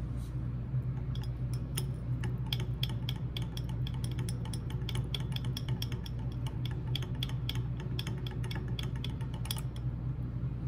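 Rapid, irregular light clicks of a metal temperature probe knocking against a glass Erlenmeyer flask as the water is stirred, starting about a second and a half in and stopping near the end, over a steady low hum.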